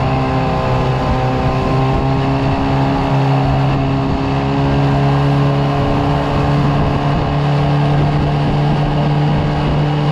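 Outboard motor on a small aluminium boat running steadily at speed, with a constant droning hum, along with the rush of water and spray along the hull.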